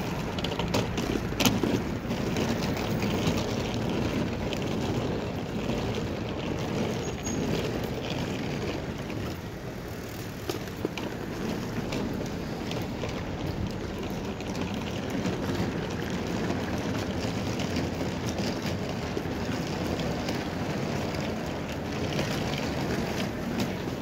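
City street ambience: a steady hum of traffic, with a sharp knock about a second and a half in.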